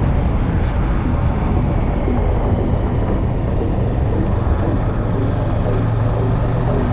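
Motorcycle riding at road speed: steady wind noise buffeting the microphone over the engine's running note. A steady low engine hum comes through more clearly from about four seconds in.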